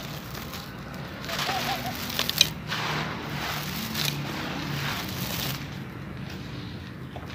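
Dry sand-cement lumps crushed and crumbled by hand, giving a gritty crunching and crackling as grit and dust fall, with a sharper crack about two seconds in.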